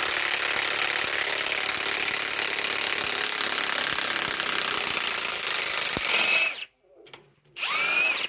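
Ridgid high-torque cordless impact wrench hammering continuously at full power on a 10-inch lag screw in hardwood, working it out. It cuts off suddenly about six and a half seconds in, and a short, wavering high-pitched sound follows near the end.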